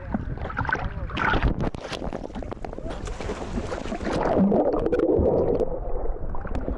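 Sea water slapping and sloshing against a waterproof action camera held at the surface while swimming, with small splashes and crackles. Near the end the camera dips under and the sound turns muffled and dull.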